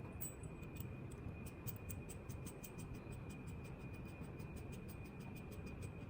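Rapid light ticking, about five or six small clicks a second, from the small metal fittings and bolt of a door pull handle being handled and fitted.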